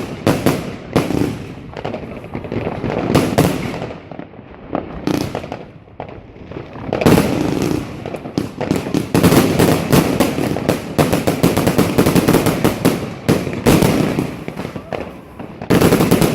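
Firework cake, a Hardstyle box multi-shot battery, firing a rapid run of shots and crackling bursts. The shots are spaced out over the first few seconds, ease off briefly, then come thick and continuous from about seven seconds in.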